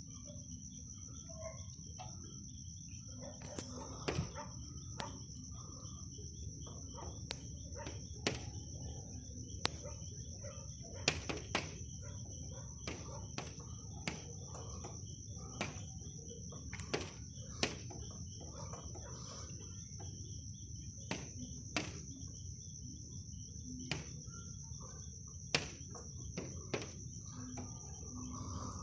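Night insects trilling steadily at a high pitch, with a second, lower insect chirp pulsing underneath. Irregular sharp clicks sound throughout, over a steady low background noise.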